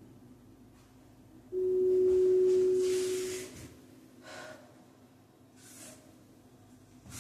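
An electronic beep: one steady pure tone held for about two seconds, starting about a second and a half in, followed by a couple of short breaths from someone exercising.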